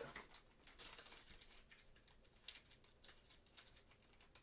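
Near silence: room tone with a few faint light clicks and rustles, mostly in the first second and a half, and one small tick about halfway through.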